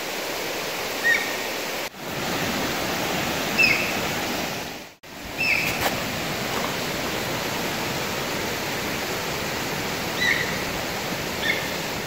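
Mountain stream rushing steadily, with five short, high whistled animal calls rising above it at irregular intervals; the animal is not identified.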